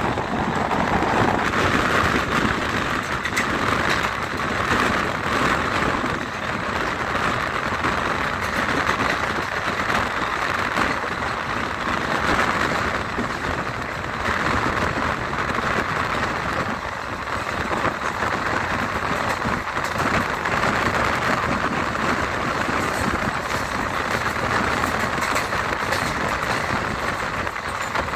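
Passenger train running steadily on the rails: a continuous loud rolling noise of wheels on track, with a stream of small knocks and gentle rises and falls in level.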